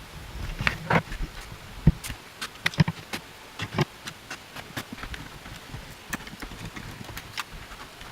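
Irregular sharp clicks and light knocks of hard objects being handled, about a dozen across several seconds, the loudest in the first three seconds.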